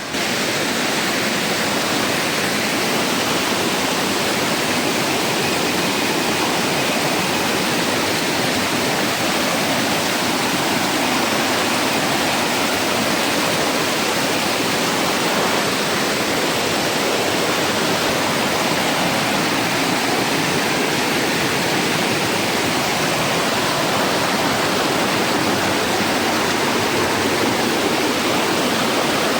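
Rocky river rushing and cascading over stones: a steady, loud rush of running water.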